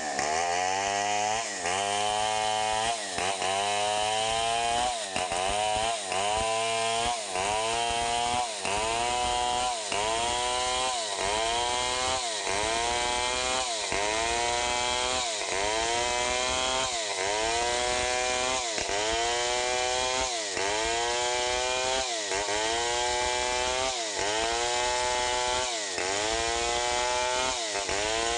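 Stihl 070 two-stroke chainsaw running at full throttle while ripping a log lengthwise into a beam. Its engine pitch dips and picks up again about once a second as the chain bogs under load in the cut and recovers.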